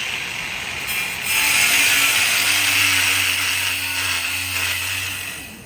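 A handheld power tool starts up about a second in and runs steadily for about four seconds with a harsh, hissing grind, then winds down near the end, most likely cutting off the rusted, broken exhaust-manifold studs.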